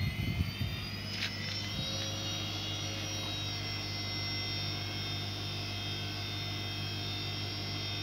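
Korting 7 kg front-loading washing machine spinning up its empty drum on the spin-dry program: the motor's whine rises over the first two or three seconds, then holds steady at speed over a steady low hum. A couple of faint clicks come about a second in.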